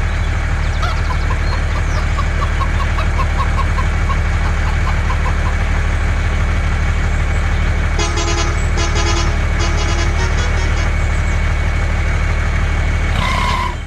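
A truck engine drones steadily. Between about eight and ten seconds in, a horn gives a quick series of short toots. The engine cuts off abruptly at the end.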